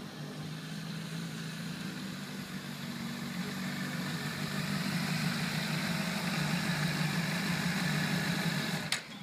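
Honda CBR1000RR sportbike's inline-four engine running at a steady pitch, growing gradually louder, then cut off by a sharp click near the end.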